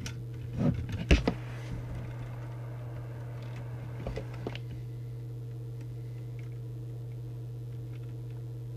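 A steady low electrical hum, with a few light clicks and knocks in the first half as an alignment tool is worked in among the wiring harness and circuit board of an opened CB radio.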